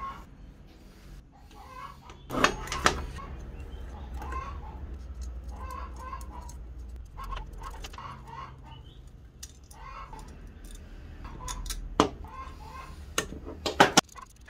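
Sharp metal clicks and knocks from handling the parts of an antique electric fire bell while its terminal nuts are worked loose. The loudest come twice about two and a half seconds in, once about twelve seconds in, and in a quick cluster near the end. A short call repeats about once a second in the background.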